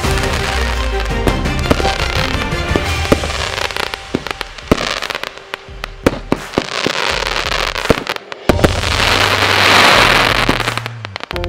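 FireFly Diamond Demon consumer firework cake firing aerial shots: a string of sharp pops and bangs with crackle, swelling into a loud hiss about nine seconds in. Background music plays underneath.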